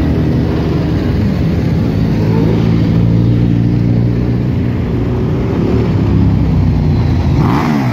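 Motorcycle and car engines running at low revs in slow street traffic, with a car passing close. A steady low engine note rises slightly in pitch twice, around two and six seconds in.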